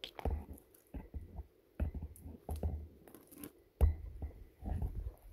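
Footsteps walking through a spruce forest, crunching on moss, needles and twigs on the forest floor in an irregular string of steps, with the heaviest step about four seconds in.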